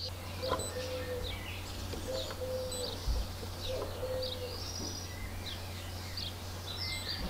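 Background birdsong: many short, high chirps and whistles, with a series of short, low cooing notes below them, over a steady low hum.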